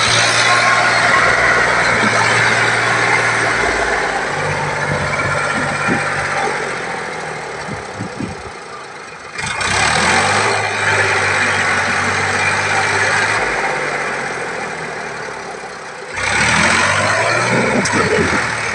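Sonalika DI 745 tractor's diesel engine running under heavy load with the rear tyres churning loose sand. It fades off and then surges loudly again twice, about halfway through and near the end, as the throttle is opened to lift the front wheels.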